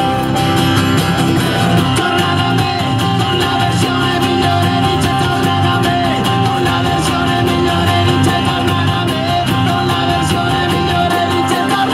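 A live band of acoustic guitar, keyboard and drum kit playing a song together, with the drums keeping a steady beat.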